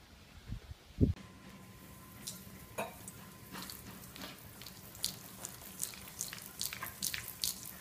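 A cat's claws skittering and scrabbling on a hardwood floor as it scrambles for grip: a rapid, irregular run of sharp clicks from about two seconds in, after a couple of dull thumps about a second in.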